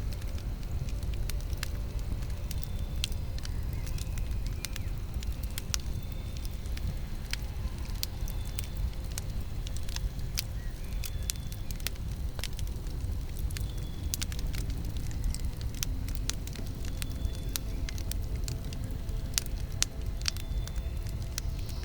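Campfire burning: wood crackling and popping in many sharp snaps over a low, steady rumble of the flames. A short, high chirp recurs every two or three seconds.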